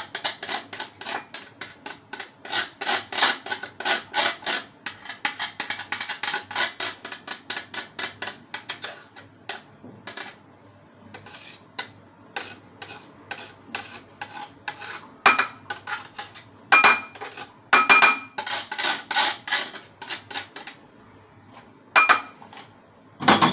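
A raw root vegetable rubbed against a fine metal grater in quick rasping strokes, about three a second, as the last small piece is grated down for its juice. About halfway through the strokes thin out, and a few sharper metallic clinks ring out near the end.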